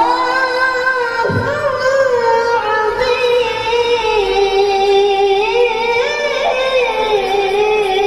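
A boy qori's high-pitched voice chanting Quranic recitation (tilawah) into a microphone: long held notes with wavering, ornamented turns.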